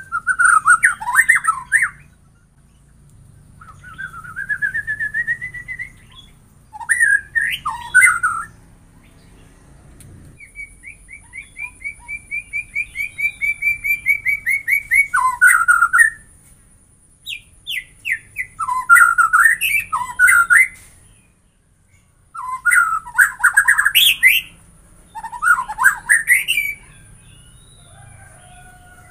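White-rumped shama singing loud, varied phrases with short pauses between them. Near the middle is a long run of quickly repeated whistled notes that grows steadily louder.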